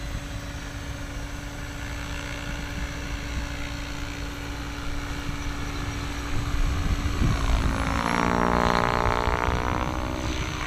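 Electric radio-controlled helicopter (MSH Protos Max V2) in flight, its rotor and motor humming steadily. Near the end it grows louder, and the pitch of its whine dips and recovers as the rotor is loaded in a manoeuvre.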